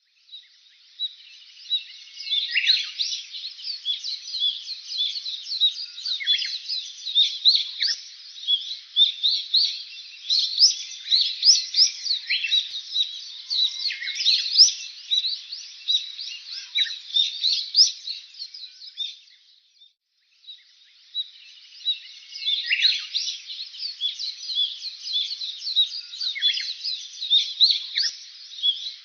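Many small birds chirping and twittering at once in a dense, continuous chorus of quick, high calls. It cuts out for about a second about twenty seconds in, then starts again.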